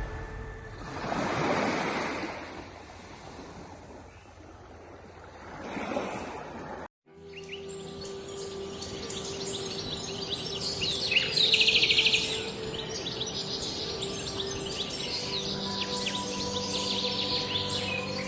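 Waves washing in twice, then a brief dropout. After it, birds chirping over soft, sustained ambient music, with a louder trill about halfway through.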